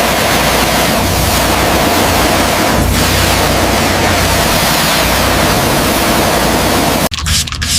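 A loud, steady rushing noise with a low rumble underneath. About seven seconds in it cuts off abruptly and quick, repeated scraping strokes of sanding begin.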